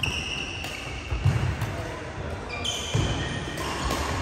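Badminton rally on an indoor court: court shoes squeak sharply on the synthetic court mat twice, once at the start and again about two and a half seconds in. Between them come footfall thuds and sharp racket hits on the shuttlecock.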